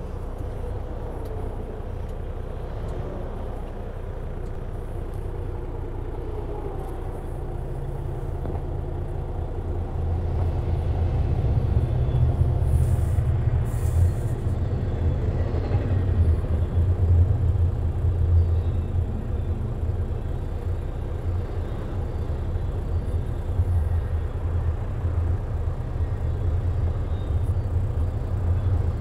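Union Pacific double-stack intermodal freight train rolling past, a steady low rumble of its wheels and well cars on the track. It grows louder about a third of the way in as the container cars come close.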